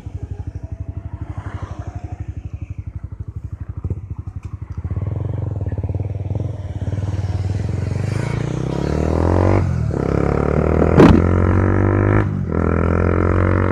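Honda CB150R's single-cylinder engine idling with an even throb, then from about five seconds in the revs climb and it gets louder as the bike pulls away, with two brief dips near the end. A sharp click sounds about eleven seconds in.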